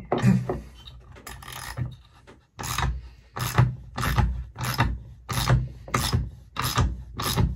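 Steel nut being spun by hand along a threaded rod in a threaded-rod bearing press, the threads rasping. Quiet scraping at first, then from about two and a half seconds in a regular rasp roughly twice a second.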